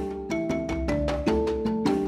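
Background music with a steady beat: short struck notes, about four or five a second, stepping through a melody over a low bass.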